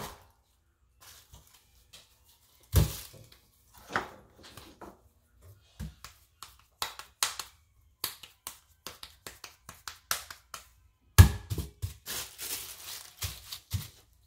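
Cast-iron tortilla press being worked on a ball of masa: two loud thuds, about three seconds in and again near eleven seconds, as the press comes down. Between them, plastic sheets crinkle and light taps and knocks come from handling the dough.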